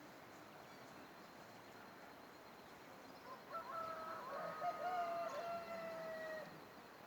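A rooster crowing once, starting about three seconds in: a single call of about three seconds that ends on a long held note, over a faint steady hiss.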